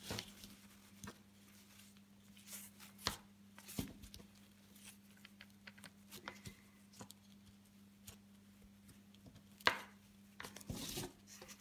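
Faint rustling and scattered small clicks of a wide satin ribbon and needle being handled and smoothed on embroidery canvas in a plastic hoop, over a steady low hum, with one sharper click near the end.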